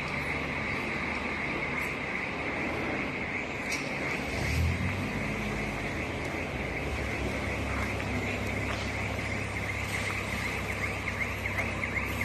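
Diesel coach engine running, its low drone growing stronger and deeper from about four seconds in as the bus pulls away and drives past.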